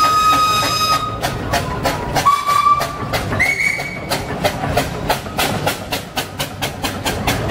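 Steam whistles over the chuffing exhaust of a steam traction engine passing close by. One whistle stops about a second in, a shorter one sounds about two seconds in, and a higher-pitched one briefly about three and a half seconds in, while the exhaust beats run on evenly.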